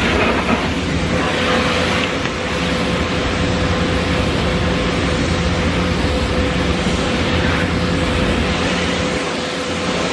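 Pressure washer spraying water onto a car, a steady hiss with a steady hum underneath.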